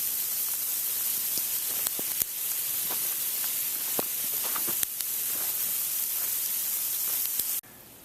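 Heavy sleet falling: a steady hiss of ice pellets with scattered sharp ticks as they strike hard surfaces. It cuts off suddenly near the end.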